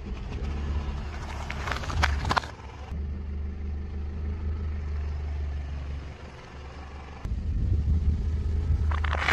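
A car's engine running at low speed while its tyre rolls over food on asphalt, with crunching cracks about one and a half to two and a half seconds in as the chocolate wafer bars are crushed. A second cluster of crunches comes near the end.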